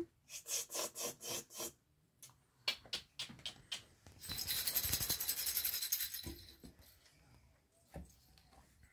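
Plastic baby rattle being shaken: a run of about six quick shakes, a few scattered clicks, then a couple of seconds of rapid continuous rattling.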